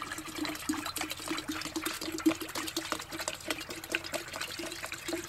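Isopropyl alcohol pouring steadily from a plastic quart bottle into a glass jar partly filled with glycerin, with a continuous splashing, gurgling fill sound.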